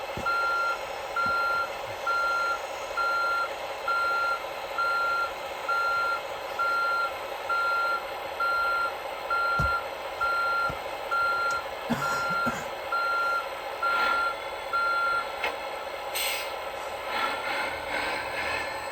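Reversing beeper of an RC model construction vehicle's sound module, beeping evenly just under once a second over a steady engine hum, stopping about 15 seconds in; a few clattering knocks follow near the end.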